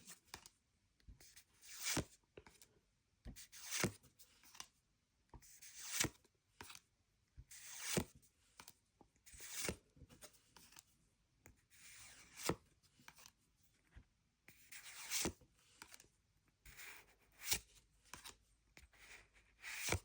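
Pokémon trading cards being slid off the stack one at a time, a short papery swish with a light click roughly every two seconds.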